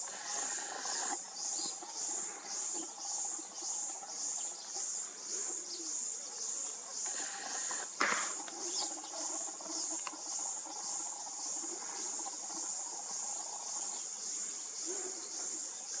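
Insects calling in a steady, high-pitched pulsing rhythm of about three pulses a second, with a few short bird chirps and a single sharp click about halfway through.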